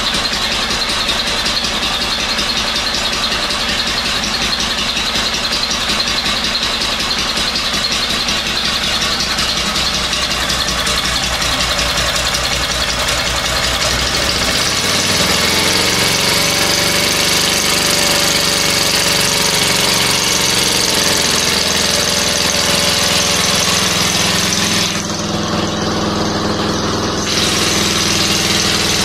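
Small internal-combustion engine running with a low, uneven pulsing. About halfway through, its speed is raised by hand at the throttle linkage, and it then runs faster and steadier.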